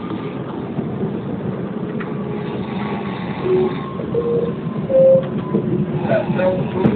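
Steady rumble of a train running, heard from inside the carriage, with a few short tones in the second half.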